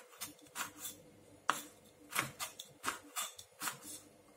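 Kitchen knife slicing small red Thai chilies on a wooden cutting board: about a dozen faint, irregular taps of the blade on the board, with one sharper tap about a second and a half in.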